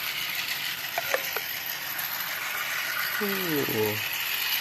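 Battery-powered toy trains running on their track: a steady whirring, clicking rattle of small motors and plastic gears, with a few sharper clicks about a second in.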